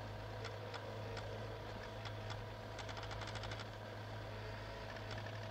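Control-room computer equipment sound effect: a low steady electronic hum with scattered ticks and a brief run of rapid clicking about three seconds in, as a position readout comes up on a monitor.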